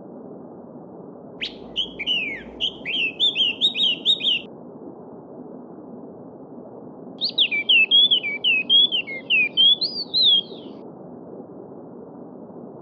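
A small songbird sings two quick phrases of chirping, sliding notes, each about three seconds long, over the steady rush of a flowing stream.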